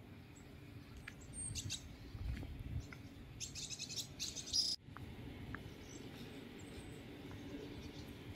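Small birds chirping in quick runs of high notes, once about a second and a half in and again from about three and a half to nearly five seconds, over a low steady rumble. The sound briefly drops out just before the five-second mark.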